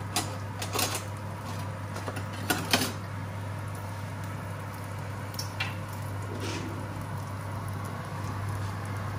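Pasta water boiling in a steel pot and guanciale sizzling in a pan on a gas hob, under a steady low hum. A steel ladle clinks against the pot a few times, loudest in a quick pair about two and a half seconds in.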